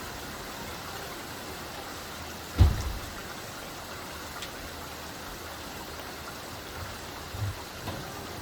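Steady rain falling, an even hiss, with a sudden loud low thump about two and a half seconds in and two softer thumps near the end.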